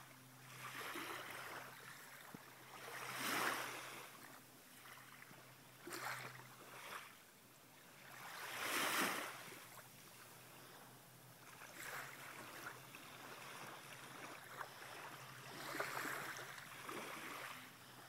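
Small waves of a calm sea washing onto the beach: a soft rush that swells and fades every few seconds, loudest twice, about a fifth and half of the way through.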